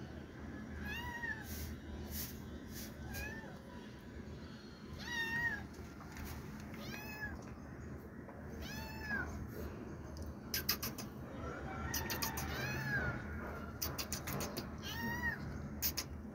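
Young kitten mewing over and over: about eight short, high-pitched mews, each rising then falling in pitch, roughly two seconds apart. Several sharp clicks come in the second half.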